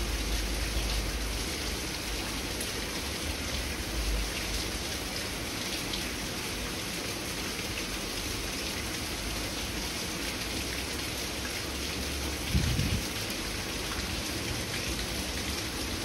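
Steady rain falling, an even hiss, with a low knock about four seconds in and another about twelve and a half seconds in.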